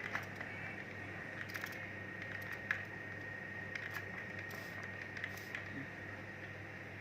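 Scattered faint clicks and light taps, the sharpest about two and a half seconds in, over a steady low hum and a faint high whine.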